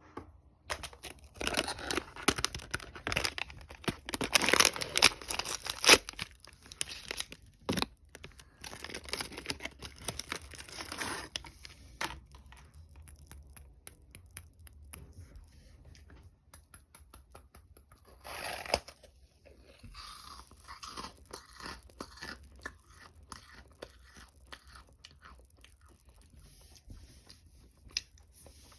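Close-up crunching and chewing of crisp food, dense and loud in the first twelve seconds, then softer, sparser chewing with one short loud crackle a little past the middle.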